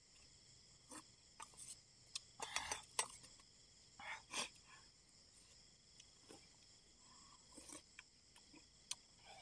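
Faint, steady chorus of night crickets and insects, with scattered small clicks and knocks throughout.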